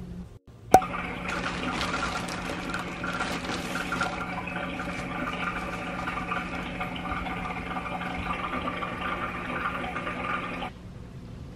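Water running steadily, like a tap running into a sink. It starts just after a sharp click about a second in and cuts off abruptly near the end.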